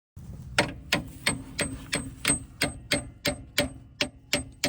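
A hand ratchet wrench clicking in an even rhythm, about three sharp clicks a second, as a nut is worked off the Jeep's axle.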